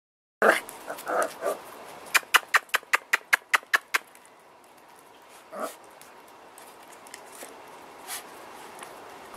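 Puppies whimpering and yipping in short high cries, with one more rising whimper past the middle. About two seconds in comes a rapid, even run of about ten sharp clicks, five a second, louder than the cries.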